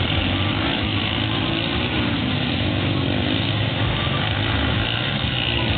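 Several motocross dirt bike engines running as riders race around the track, heard over a steady noisy background.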